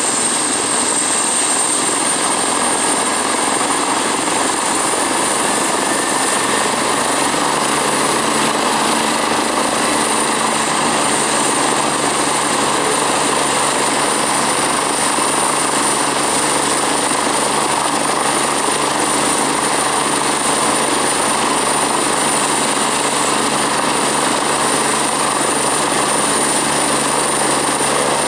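2012 MBB-BK117 C-2 (EC145) helicopter running on the ground with its rotor turning: the steady rush of the twin Arriel turboshaft engines and rotor, topped by a high turbine whine that edges up slightly in pitch over the first third.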